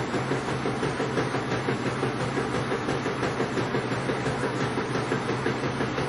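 Washing machine in its spin cycle: the drum spinning at speed with a steady motor hum and an even, rapid rhythmic pulsing.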